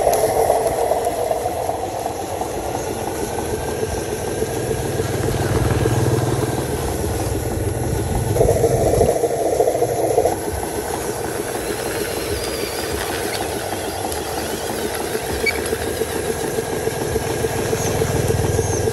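Radio-controlled Hino 500 model truck running under load: a steady engine-like drone with a rapid even pulse, louder for about two seconds around the middle.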